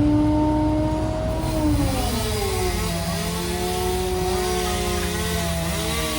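An engine running and changing speed: its pitch falls about two seconds in, then holds lower with small wavers, over a low rumble.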